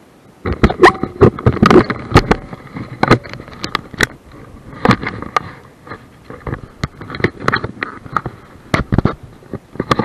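Water slapping and splashing against a small camera held at the surface of shallow salt water, with many irregular sharp knocks and clicks, starting about half a second in.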